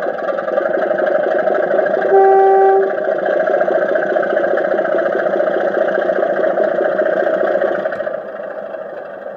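A sound-fitted model class 25 diesel locomotive playing its recorded diesel engine sound through its onboard speaker, with one short, single-note horn toot about two seconds in. The engine sound eases to a lower level near the end.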